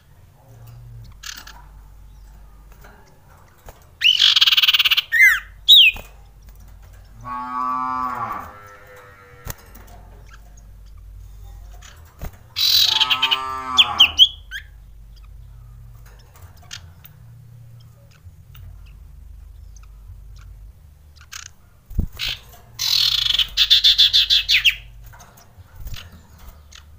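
Common iora (cipoh) calling: three loud bursts of high, rapid trilling, each about two seconds long and spaced several seconds apart. Twice there is a lower, drawn-out note that falls in pitch.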